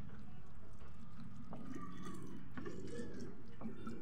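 Water poured from a plastic bottle onto the soil of a potted spider plant, trickling and dripping, with a few faint clicks.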